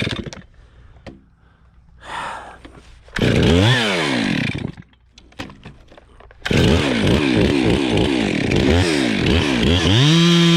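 Chainsaw engine revving up and dropping back in short bursts, a brief lull, then running hard again with the pitch rising and falling before levelling off near the end.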